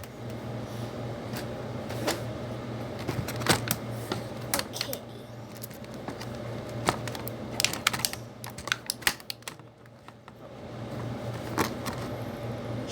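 Irregular clicks and taps of small plastic kit pieces (cups, mixing sticks, lids) being handled and set down on a table, thickest in the middle, over a steady low hum.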